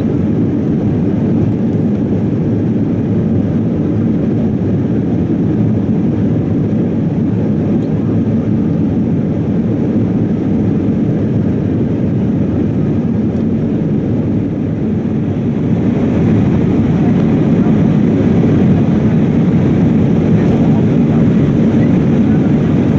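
Steady cabin roar of an Airbus A319 in climb, heard from inside the passenger cabin: a deep, even rushing of engine and airflow. From about sixteen seconds in it turns a little louder and hissier.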